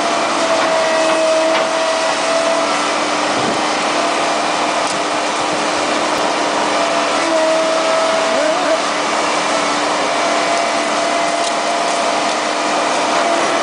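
Tractor-mounted boom brush cutter running steadily as its cutting head works through dry brush: a loud, even machine noise with a steady whine over it.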